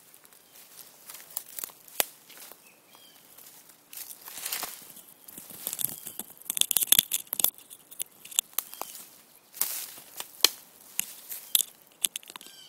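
Rustling leaves and snapping twigs in forest undergrowth: irregular sharp crackles and brushing noises, busiest from about four to eight seconds in.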